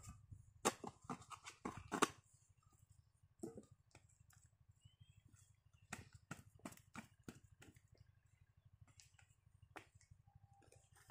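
Hand digging hoe chopping into wet soil and stones: a quick run of strikes and scrapes in the first two seconds, then single and grouped strikes spaced out after, over a low steady rumble.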